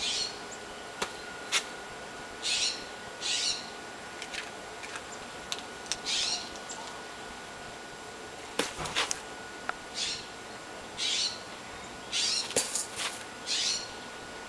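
An animal hissing in short bursts of about half a second each, about eight times, with a few sharp clicks between, as a juvenile skunk and a cat face off.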